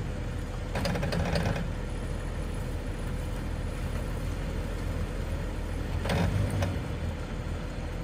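Jeep Wrangler LJ's 4.0-litre straight-six running at low speed as the Jeep crawls up a wet, rocky ledge, with two brief louder spells about a second in and about six seconds in.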